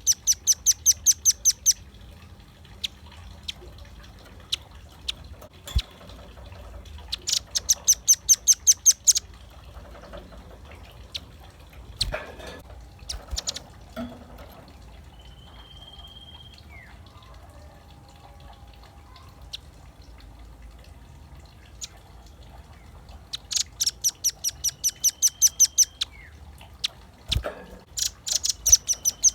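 Velvet-fronted nuthatch singing: fast trills of sharp, high, evenly repeated notes, about seven a second, in bursts of two to three seconds. The bursts come near the start, about seven seconds in, and twice near the end, with scattered single chips between them.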